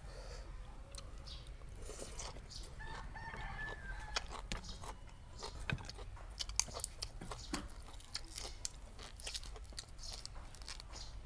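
A rooster crows once in the background about three seconds in. Throughout, crisp clicks and crackles come from fresh vegetable stems and leaves being snapped and picked apart by hand.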